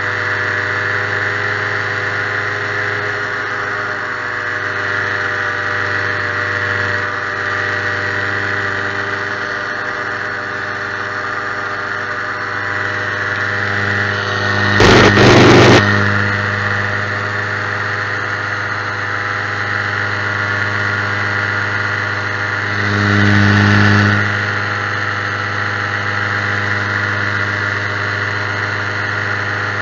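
Ultralight aircraft engine running steadily at constant pitch in flight. About halfway through there is a loud rushing burst of about a second, and a shorter, smaller swell comes later.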